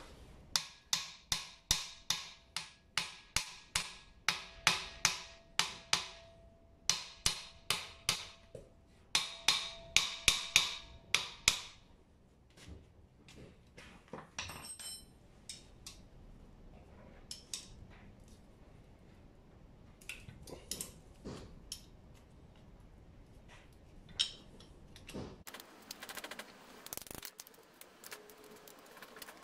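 Hammer blows on the steel of a rear differential, about two and a half a second with a metallic ring, in two runs with a short break. Then come scattered lighter metal clicks and taps, and a steady scraping near the end.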